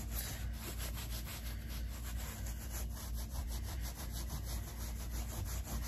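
Rapid back-and-forth rubbing of a small white wad on carpet pile, scrubbing at spilled glue, in quick even strokes over a low steady hum.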